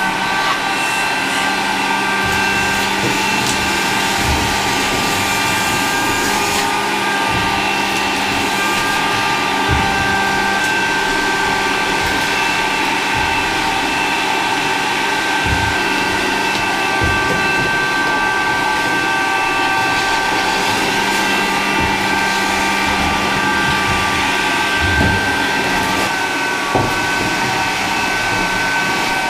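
Vacuum cleaner running steadily with a whine while it sucks dust and grit off the top of an elevator car. A few dull knocks are heard along the way.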